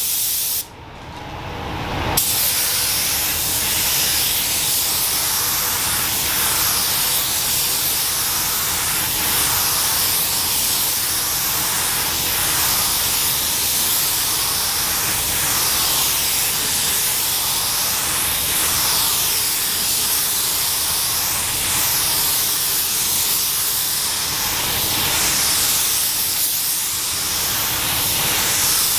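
Compressed-air gravity-feed paint spray gun hissing steadily as it sprays paint onto a car body, starting about two seconds in after a brief lull.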